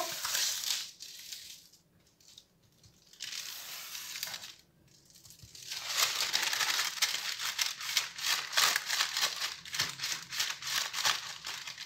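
Baking paper rustling and crinkling as it is lifted, folded over a seed-coated roll and pressed around it by hand, so the seeds stick. Soft and intermittent at first, then busier and louder about halfway through.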